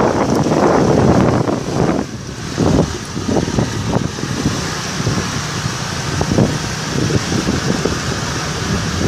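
Wind buffeting the microphone of a camera riding on a moving motor scooter, in uneven gusts, with the running of small scooter engines underneath.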